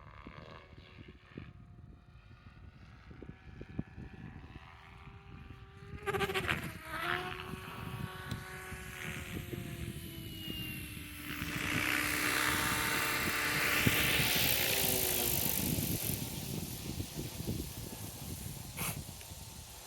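Helicopter whine at a fairly steady pitch, coming in sharply about six seconds in, then a rushing hiss that swells louder in the middle and fades, over wind buffeting the microphone.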